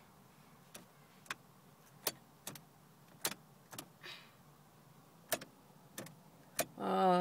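Sharp, irregularly spaced clicks, about nine in all, of a car's dashboard switches and stalks being worked by hand in a quiet cabin.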